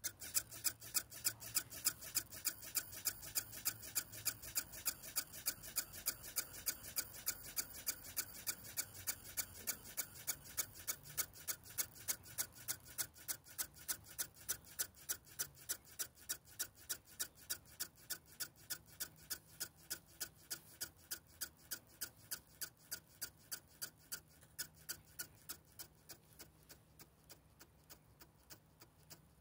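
JR S8477 SS 'Game Changer' servos ticking in small steps, about three ticks a second and growing fainter near the end. They are running the automatic PWM synchronization, the follower servos stepping down the throw in 1-degree increments to learn the master servo's position.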